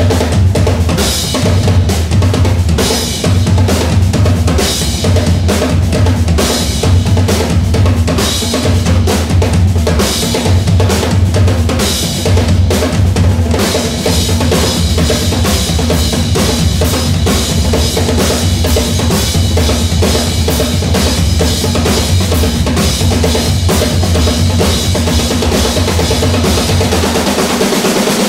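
Three snare drums and three floor toms played together in a dense, driving rudimental groove. The low floor-tom beat drops out near the end while the snare strokes carry on.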